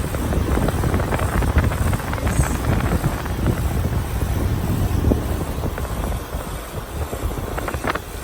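2016 Keeprite 4-ton central air-conditioner condenser running, a steady low rumble of compressor and fan with scattered small clicks, easing slightly near the end. The unit is shaking heavily.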